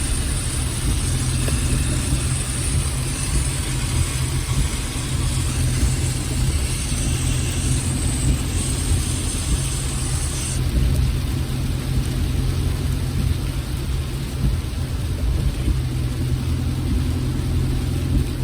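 Car driving, with a steady low engine and road rumble. A high hiss lies over it and cuts off about ten and a half seconds in.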